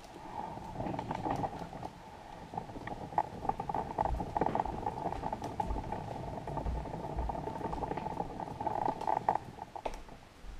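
Stroller wheels rolling over a hardwood floor, a steady rumbling whirr with scattered small knocks and rattles. It dies away about nine and a half seconds in as the stroller comes to a stop.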